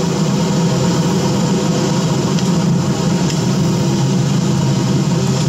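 Steady low rumbling drone with a hiss above it, the soundtrack of a projected video clip played back loud over the hall's speakers.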